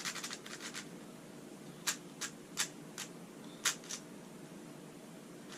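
Plastic speed cube being turned by hand: a quick run of clicking turns at the start, then about six separate sharp clacks.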